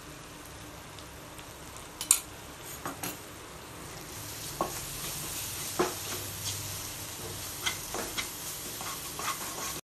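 Onion-tomato masala sizzling in a kadai while a wooden spatula stirs ground spice powder into it, scraping and knocking against the pan. The loudest knock comes about two seconds in, and the sizzle grows louder from about four seconds in as the stirring gets going.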